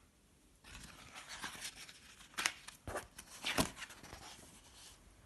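A paper page of a picture book being turned: quiet rustling that starts just under a second in, with a few sharp crackles of the page in the middle.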